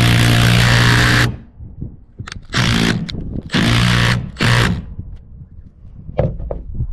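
Power drill with a socket driving a 225 mm landscape screw through a SIP roof panel into solid timber: it runs steadily for about a second, stops, then gives four short bursts as the washer is pulled down good and tight. A couple of light clicks near the end.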